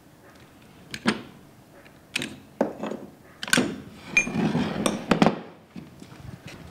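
Metal clanks and knocks as a scissor pipe bender is opened, its aluminium guide bar set down on a wooden bench and a freshly bent copper pipe lifted out. A series of separate knocks comes first, then a longer scraping rattle about two-thirds of the way through.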